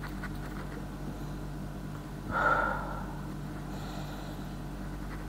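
A person takes one loud sniff about two seconds in, smelling perfume freshly applied to the hand, over a steady low hum.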